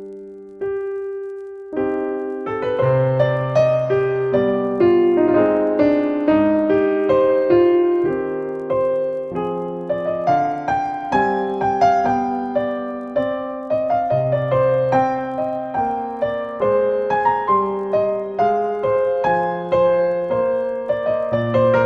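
Solo piano background music: a gentle melody of single struck notes over low bass notes, with a short lull before a new phrase begins about two seconds in.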